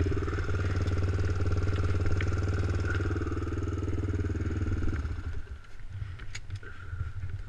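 ATV engine running steadily at idle, then cutting out about five seconds in. A few light clicks follow.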